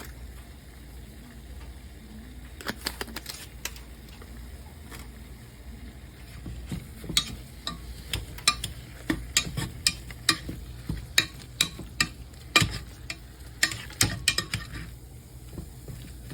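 Seasoned potatoes being mashed and stirred in a pot, the utensil knocking and scraping against the pot, the knocks coming regularly, one or two a second, in the second half.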